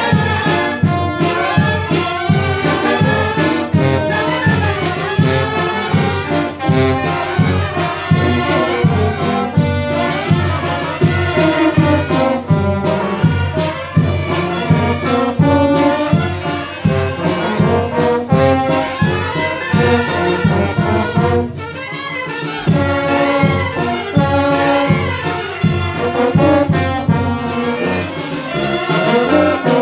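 Mexican wind band (banda de viento) of clarinets, saxophones, trombones and trumpet playing a lively tune live with a steady beat, dropping briefly in loudness about 21 seconds in.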